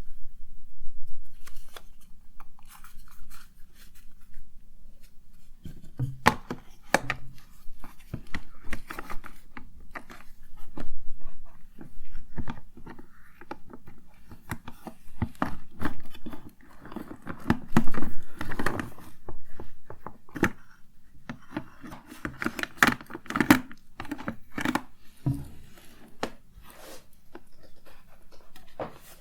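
Close-miked handling of cosmetics and their containers: irregular clicks, taps, knocks and rustling as items are picked up, opened and put down, with louder flurries here and there.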